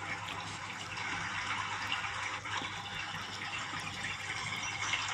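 Steady rushing water noise, even and unbroken, over a low steady hum.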